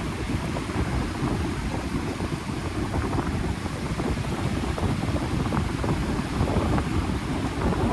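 Wind buffeting the microphone by the sea: a continuous low rumbling noise that rises and falls in gusts.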